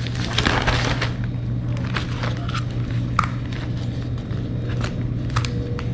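Kitchen cooking sounds: a steady low hum under scattered light clicks and a few short clinks of cookware and utensils being handled.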